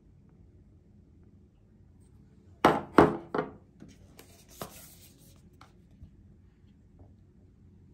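Small glass dropper bottles set down on a hard bathroom countertop: three sharp knocks in quick succession about three seconds in, followed by a short rustle with a click.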